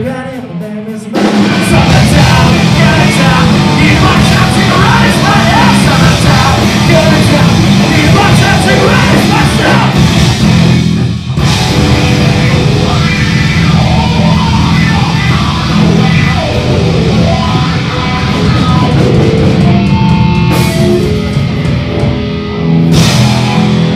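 A rock band playing live and loud on electric guitar, bass guitar and drum kit. The full band comes in about a second in, with a short break about eleven seconds in.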